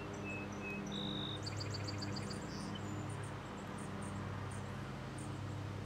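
Birds calling: a few short high whistled notes, then a quick run of about eight chirps a second, over a steady low mechanical hum.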